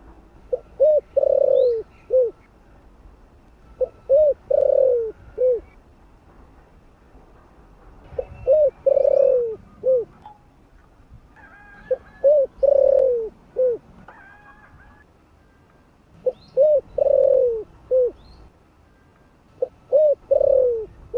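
Spotted dove cooing: six phrases about four seconds apart, each two short notes, a long falling note and a short closing note.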